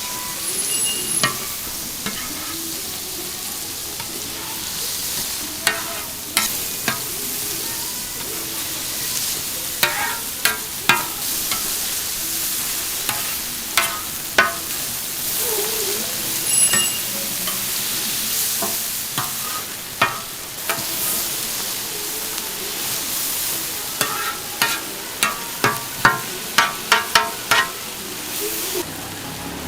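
Food sizzling on a street-stall toast griddle with a steady hiss, while a metal spatula clicks and scrapes against the hot plate now and then. A quick run of taps comes near the end.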